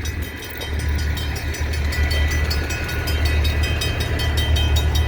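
Stopped diesel freight locomotive idling, a low, steady hum. Over it comes a rapid, evenly repeating high ringing, about seven strokes a second, growing louder after about two seconds.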